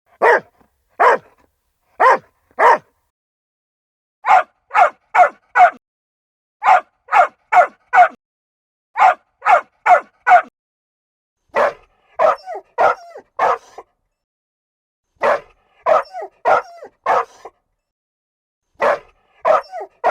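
A dog barking repeatedly. It starts with single barks, then barks in bursts of three or four with pauses of about a second between them, and quieter short yips fall between the barks in the later bursts.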